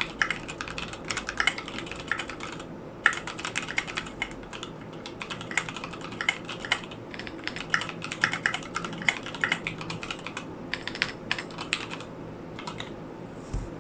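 Mechanical keyboard typed on in quick runs of keystrokes with brief pauses between them. It has unlubed Gateron Mint switches with their springs swapped for Sprit 65 springs, SA Royalty keycaps and an E6-V2 case.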